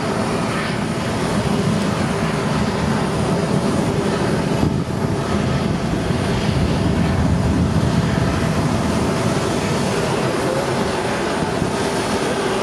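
Steady rumble and whine of jet aircraft engines running, with no change in level.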